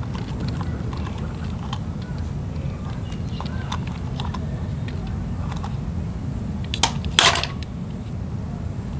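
Small clicks and knocks of die-cast toy vehicles and plastic balls being handled, with a louder brief clatter about seven seconds in, over a steady low rumble.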